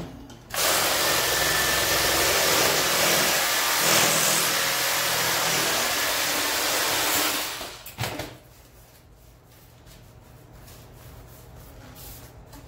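Power saw cutting through PVC pipe: a steady, loud cutting noise for about seven seconds that stops when the cut is through. A sharp knock follows just after, as the pipe is handled.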